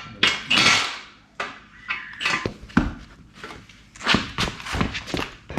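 Irregular knocks and clatters of tools and metal engine parts being handled, about a dozen sharp strikes with short scraping noises between them.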